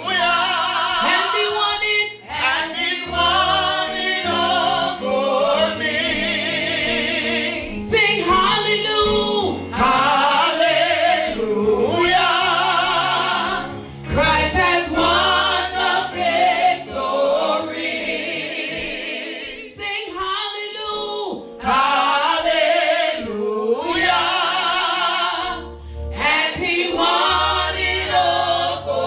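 Gospel singing by a man and a woman into microphones, in phrases with wavering held notes and short breaks between them.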